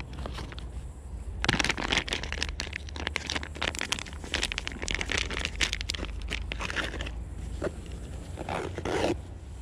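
Plastic soft-bait packet crinkling and rustling as it is handled and put away, a dense crackle starting about a second and a half in and thinning out after about seven seconds.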